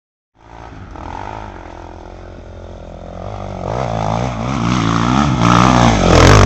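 Enduro dirt bike engine under load, climbing a steep grassy slope. The revs rise and fall repeatedly as it grows louder and closer, loudest near the end.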